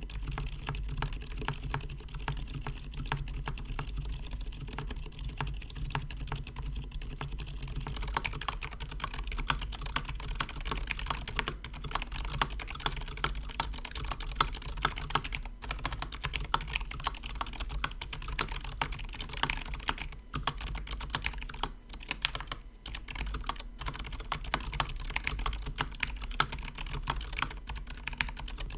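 Continuous typing on a KBD67 Lite mechanical keyboard fitted with lubed silent tactile switches (Zeal Aqua Zilent or Gazzew Boba U4): a dense, steady stream of keystrokes.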